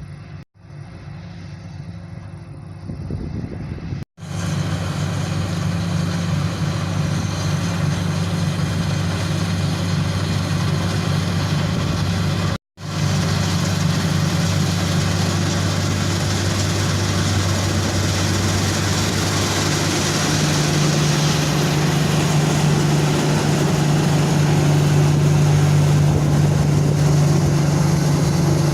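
Combine harvester at work in a wheat field: a steady engine drone with a low hum under a broad rushing noise. It grows louder a few seconds in and again in the last third.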